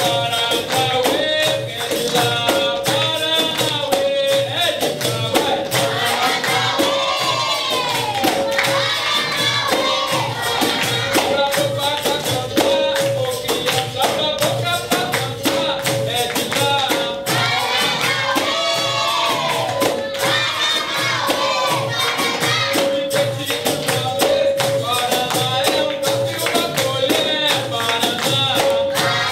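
Capoeira music: voices singing together over a pandeiro's jingling rhythm and an even drumbeat, with a short high note repeated throughout.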